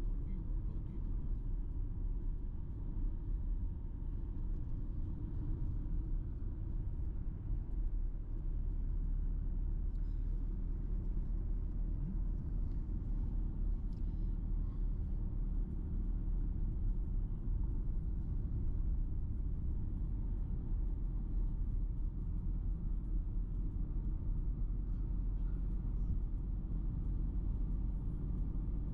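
Steady low rumble of a car driving along a road: engine and tyre noise with no change in pace.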